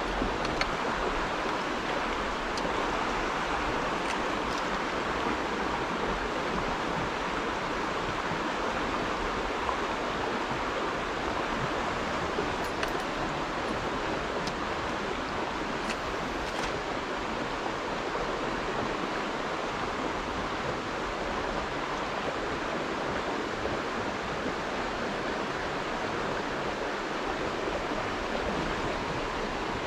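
River water rushing steadily, an even unbroken noise.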